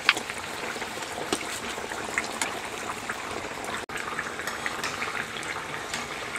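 Hot oil bubbling and crackling steadily around semolina puris deep-frying in a kadhai, with many small sputtering ticks. The sound breaks off for an instant just before four seconds in.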